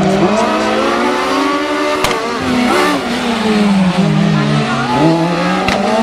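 Rally car engine working hard through a tight section, its pitch climbing and dropping several times with throttle and gear changes. A few sharp cracks come about two seconds in and near the end.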